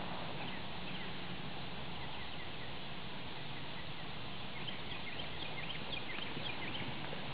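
Steady rustling noise with small birds chirping repeatedly, short high falling chirps that come thickest past the middle.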